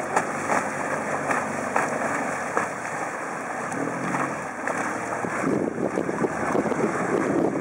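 A Honda four-stroke outboard motor running steadily as a small aluminium boat passes close by, with water rushing in its wake.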